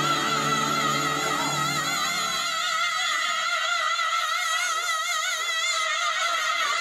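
Women singing, holding one long high note with a wide vibrato over a low musical accompaniment that stops about two and a half seconds in.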